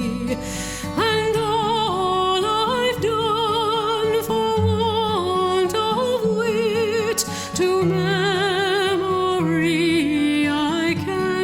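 Slow music with a solo voice singing long held notes with a wide vibrato over a sustained accompaniment.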